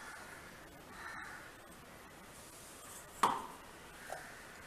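Soft hiss of dry bread crumbs poured from a mixer-grinder jar into a steel plate. About three seconds in comes one short, sharp knock.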